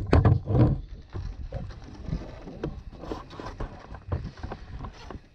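Wind rumbling on the microphone, with irregular knocks and rustling from handling.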